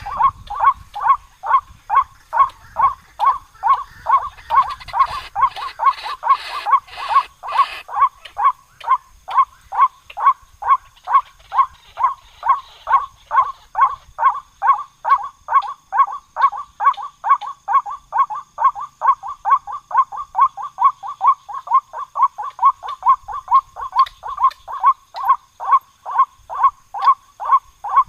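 White-breasted waterhen calling: a monotonous, unbroken series of short, identical 'kwaak' notes, close to three a second.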